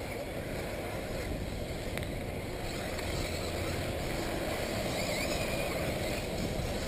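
1/8-scale electric RC buggies racing, their motors giving faint whines that rise and fall a few times over a steady background rush.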